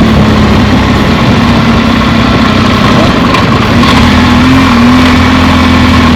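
A vehicle engine running loud and steady at an even speed, its pitch lifting slightly about four and a half seconds in.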